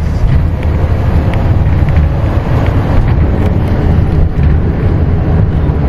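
Shuttle bus in motion, heard from inside the cabin: a loud, steady low rumble of engine and road noise.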